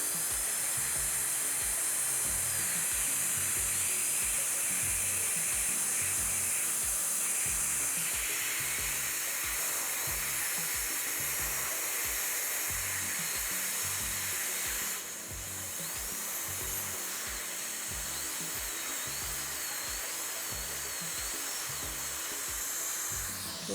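Dental handpiece running steadily with a high whine and hiss, its pitch wavering as a football-shaped Arkansas white stone polishes a composite filling. It eases off slightly about two-thirds of the way through. A steady music beat plays underneath.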